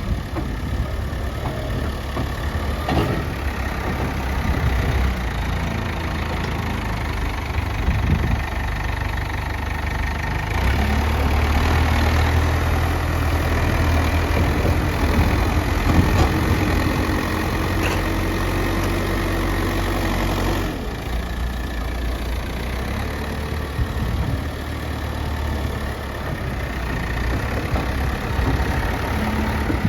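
Diesel engine of a front-bucket earthmover running steadily. About a third of the way in it rises in level, as if working harder, and it drops back suddenly about two thirds of the way through.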